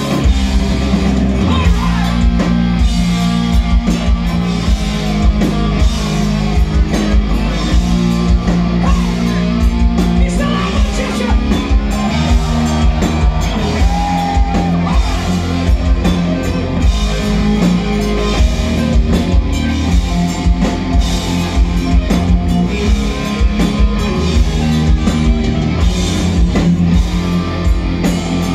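Hard rock band playing live at full volume: distorted electric guitars, bass and drum kit driving a steady beat, with a singer's vocals over the top, heard from within the crowd.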